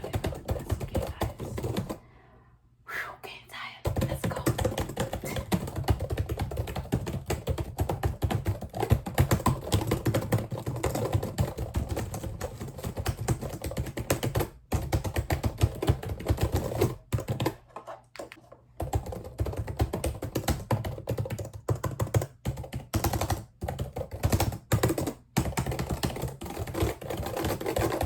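Dense, rapid run of small sharp clicks and taps made up close for ASMR, stopping briefly about two seconds in and again a little past the middle before carrying on.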